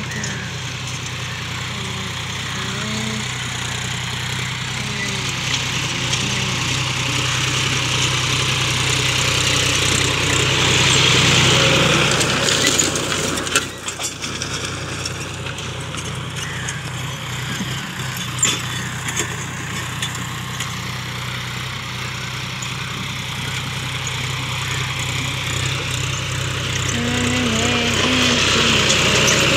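John Deere 5050D tractor's three-cylinder diesel engine running steadily under load while pulling a disc harrow through dry soil. It gets louder about a third of the way in and again near the end as the tractor comes close.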